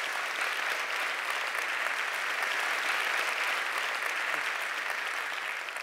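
Theatre audience applauding, a dense, steady clapping that fades away just after it ends.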